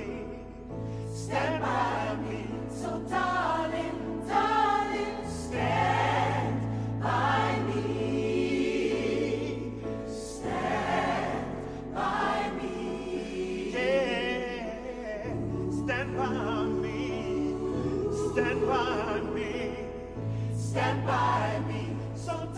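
Background music: a choir singing over long held low notes that change every few seconds.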